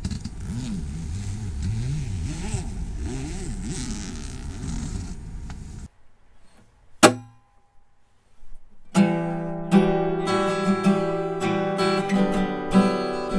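Zipper of a fabric guitar gig bag being drawn open for about six seconds, then a single sharp knock about seven seconds in. From about nine seconds a Taylor acoustic guitar is strummed, its chords ringing out.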